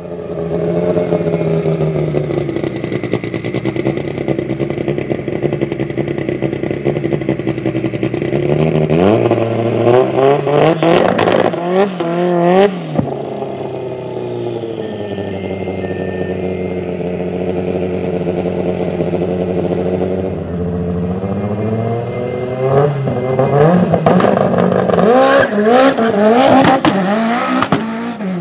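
Loud 1000+ hp turbocharged Lancia Delta drag car engine idling steadily, then blipped through quick rev bursts about ten seconds in. It settles back to idle, then revs up and down repeatedly on the start line and rises in pitch near the end as the car pulls away.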